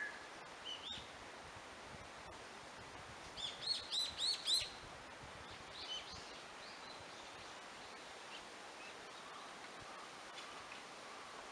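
Wild birds singing in a forest over a steady faint hiss, with a loud run of about six quick, arching chirps near the middle and a few fainter calls before and after.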